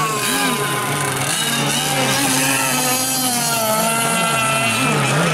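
A small racing engine running at high revs, its pitch repeatedly dipping and rising about twice a second as the throttle is worked, then holding steadier near the end.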